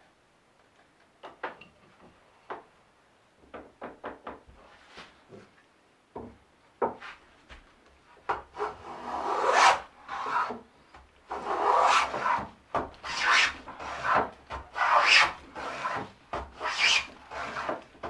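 Scattered light knocks of wood being handled, then a steady run of rasping strokes as a hand rasp or file works a wooden part, starting about halfway through.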